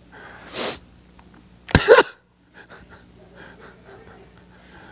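Breath sounds close to a microphone: a breathy exhale about half a second in, then a short, loud, explosive vocal burst a little under two seconds in, followed by faint murmuring.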